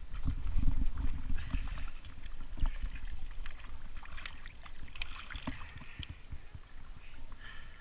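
Water sloshing and splashing as a scuba diver moves in the shallows, with scattered small clicks and knocks of gear, heaviest in the first second and a half.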